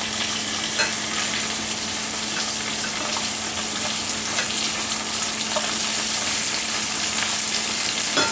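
Thin flour-dredged veal cutlets sizzling and crackling steadily in a skillet of hot vegetable oil and butter, pan-frying to brown. A few light clicks sound over it, a cluster near the end.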